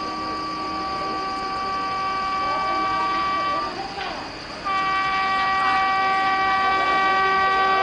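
Indian Railways locomotive horn sounding two long blasts, a steady chord of several tones. The first blast cuts off a little over three and a half seconds in, and the second starts about a second later and is held.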